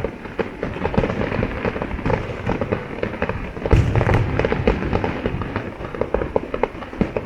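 Fireworks display: a dense, continuous crackle and popping of shells, with a louder burst about halfway through.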